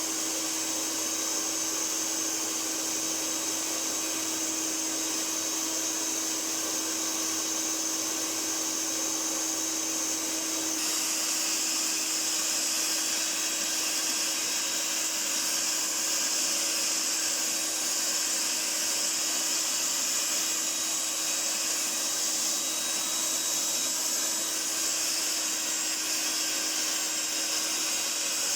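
1982 Hoover Powervac S4266 wet and dry tub vacuum cleaner running steadily, a motor hum with a high whine over rushing air. About a third of the way in, the airflow turns brighter and hissier.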